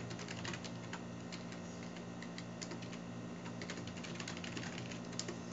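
Typing on a computer keyboard: a quick, irregular run of key clicks, over a faint steady low hum.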